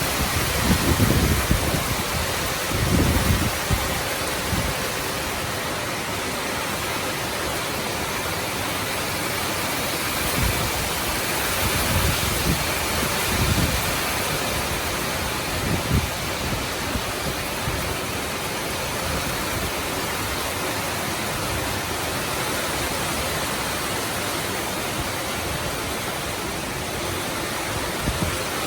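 Heavy rain pouring down in a steady hiss during a rainstorm, with a few brief low rumbles in the first few seconds and again about halfway through.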